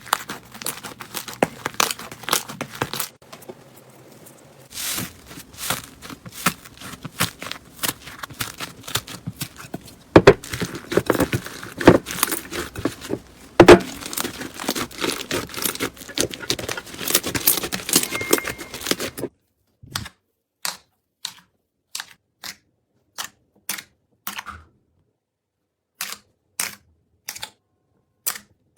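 Crunchy slime being squeezed and pressed, giving a dense run of crackles and pops. About two-thirds of the way through this stops suddenly and gives way to separate sharp clicks, roughly two a second.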